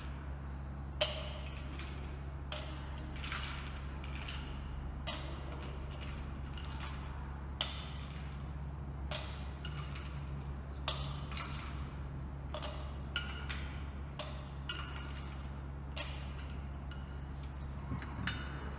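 Ice cubes clinking as they are scooped with a metal ice scoop and tipped into the glass half of a Boston shaker: sharp, irregular clinks, roughly one a second. A steady low hum sits underneath.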